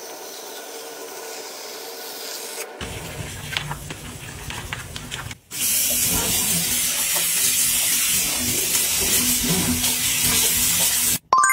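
Aerosol foam drain cleaner hissing as it is sprayed into a sink drain. After a cut comes a louder, steady hiss over a foam-filled bathtub, and a short bell-like ding right at the end.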